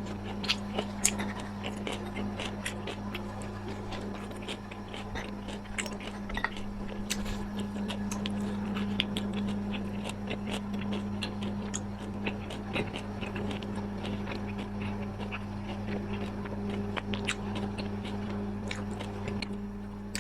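Close-up eating sounds: irregular chewing and biting clicks, over a steady low electrical hum.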